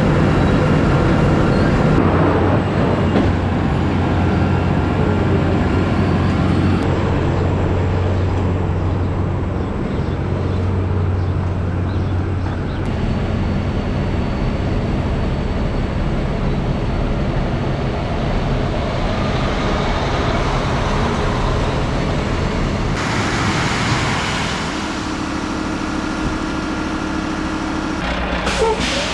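Dump truck's diesel engine running steadily while driving, with a short hiss of air about three-quarters of the way through.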